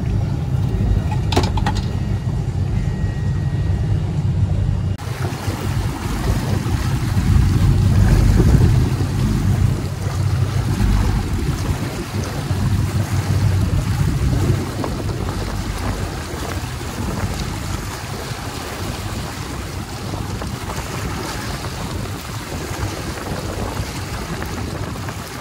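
Boat engine running under way, with a rush of wind and water noise; about five seconds in the sound changes abruptly to a broader, steadier rush.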